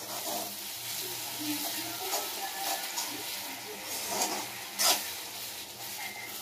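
A metal slotted spatula stirring and scraping thick curry gravy in a metal kadai while the gravy sizzles. There is one sharp metal clank about five seconds in.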